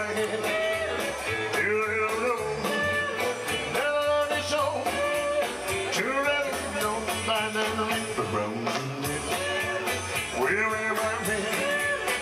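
Male singer performing a 1950s–60s-style rock-and-roll song with electronic keyboard and a steady beat.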